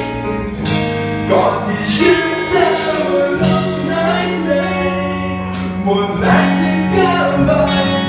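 Live rock band playing a song: a singer's vocals over electric guitar, bass guitar and drums, with cymbal hits on a steady beat.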